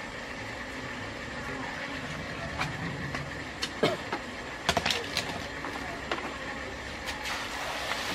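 A green plastic basket handled and set down on wet concrete, giving a few short clicks and knocks over a steady background hum. At the very end a bucket of pond water and fish is tipped into the basket with a splashing rush.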